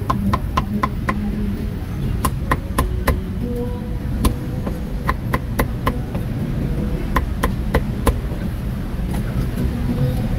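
A cleaver chopping meat on a wooden chopping block: runs of four or five quick, sharp strokes, about four a second, with short pauses between runs. A steady low rumble of background noise runs underneath.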